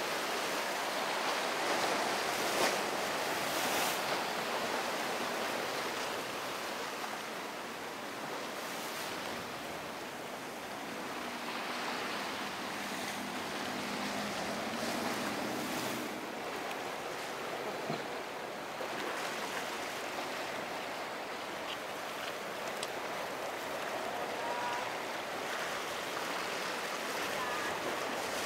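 Surf and breaking waves with wind on the microphone. A boat engine is faintly heard about halfway through.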